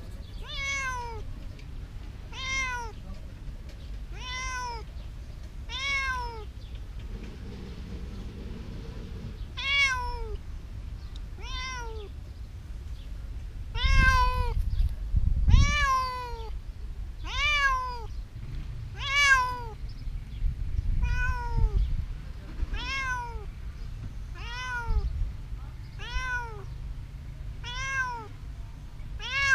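Ginger tabby cat meowing over and over, short meows that rise and fall in pitch, about one every one and a half to two seconds, with a pause of about three seconds after the first four. A low rumble sits under the meows twice near the middle.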